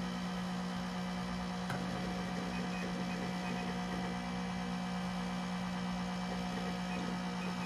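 Macintosh SE running with its external 30 MB hard drive: a steady hum of fan and drive noise, which the owner calls very loud and believes abnormal. A faint click about two seconds in.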